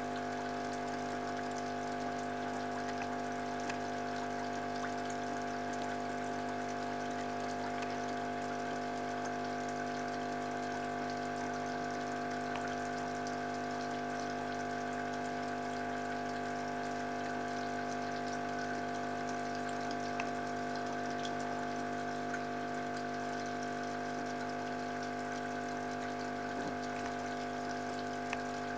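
Aquarium pump running with a steady, unchanging hum, over a constant light trickle of water.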